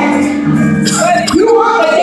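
Gospel music with voices singing.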